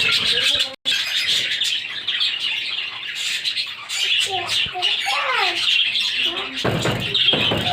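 Pet budgerigars and cockatiels chirping and chattering together: a steady high twittering with squawks that rise and fall in pitch. A brief noisy burst comes near the end.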